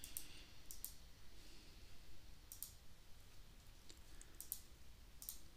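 Faint clicks of a computer mouse and keyboard, a handful spread out, some in quick pairs.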